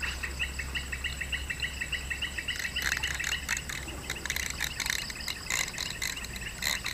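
Rapid, even chirping from small wild creatures, several chirps a second, joined about two and a half seconds in by higher, scratchier chirping.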